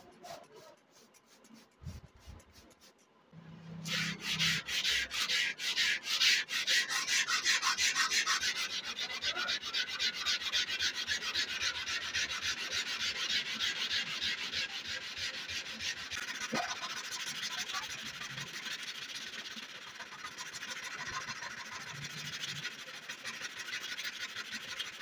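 Steel blade of a meat cleaver being hand wet-sanded with a sanding block, in rapid back-and-forth scraping strokes that start about four seconds in, to take rust off the blade. Before the sanding there are a few faint squirts of a spray bottle.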